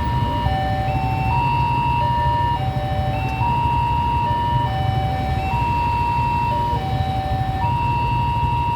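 Railway level-crossing warning siren repeating a short electronic phrase of two or three stepped notes about every two seconds, over a steady low rumble.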